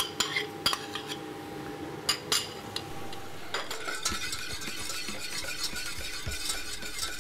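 Metal spoon clinking and scraping against a stainless steel saucepan as chopped shallots are stirred in melted butter, with several sharp clinks in the first few seconds.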